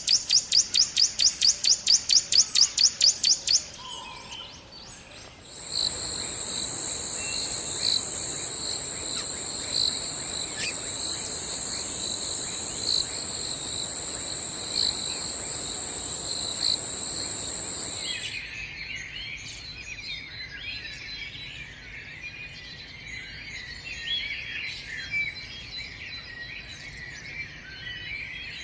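Forest wildlife: a fast, evenly repeated high call for the first few seconds, then a steady high-pitched insect drone that starts suddenly and stops after about twelve seconds, followed by a chorus of small birds chirping.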